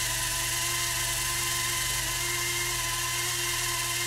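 Electric RC helicopter hovering: a steady high motor-and-rotor whine that holds one pitch.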